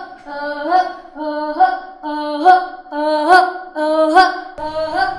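Music: a melodic phrase of held notes, a new one about every second, each ending in a short upward slide.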